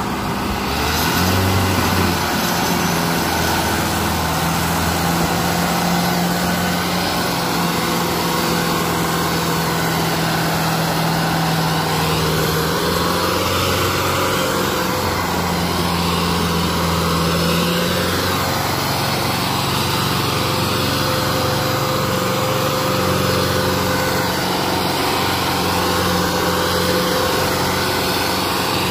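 Sonalika DI 750 tractor's diesel engine running hard under heavy load, hauling a trailer full of sand, its pitch shifting a few times.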